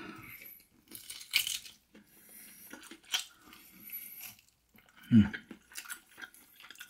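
A person eating air-fried barbecue ribs by hand: quiet chewing and biting with a few sharp, crunchy clicks from the crispy sauced meat, and a short low voice sound about five seconds in.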